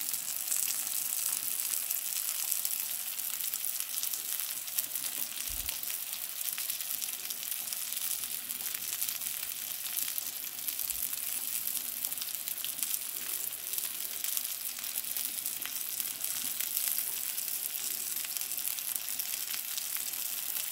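King mackerel steaks frying in butter in a nonstick pan, a steady sizzle with fine crackling.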